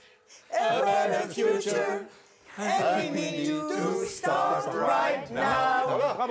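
Voices singing a cappella, men and women together, in held sung phrases with a short break about two seconds in.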